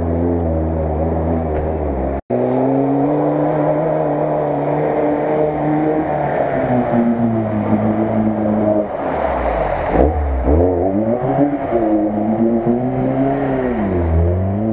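Lada Niva's engine revving as it drives through deep water, its pitch rising and falling several times under load, with water splashing around it. A split-second dropout about two seconds in.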